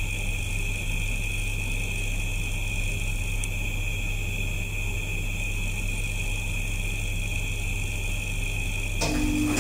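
Steady mechanical and electrical hum inside a 1989 KONE traction elevator car, a low hum with faint high-pitched whines over it. About nine seconds in comes a short mechanical clunk and rumble from the lift equipment.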